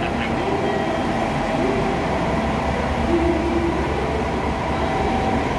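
Diesel railcar of the Aru Ressha sweets train running at the platform, a steady deep rumble with no sudden changes.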